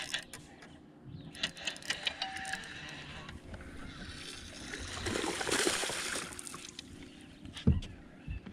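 Sounds of a bass being landed into a fishing boat: scattered clicks of handling, a stretch of splashing water about five seconds in, and a sharp thump near the end.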